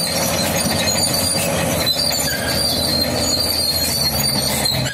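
Caterpillar D6 crawler bulldozer on the move: its diesel engine runs steadily while its steel tracks give a high metallic squeal and clatter.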